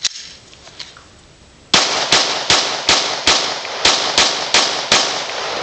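Glock 17 9mm pistol with a ported Lone Wolf barrel fired in quick succession: nine shots about a third of a second apart, with a brief pause after the fifth, each followed by a short echo.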